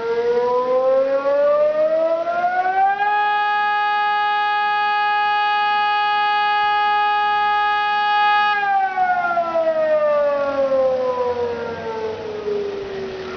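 Civil defence warning siren wailing through one full cycle. Its pitch rises for about three seconds, holds steady for about five seconds, then falls slowly, with a lower second tone rising, holding and falling with it.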